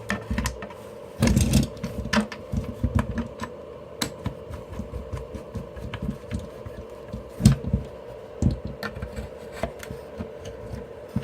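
Irregular clicking and small knocks of a screwdriver and screws against the plastic housing of a Rok 600 W electric blower as it is screwed back together, over a steady hum.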